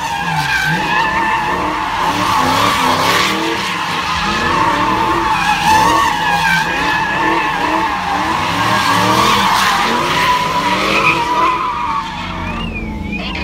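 A car doing a burnout in donuts, its rear tyres squealing continuously on asphalt as the engine revs up and down. The squeal stops about twelve seconds in.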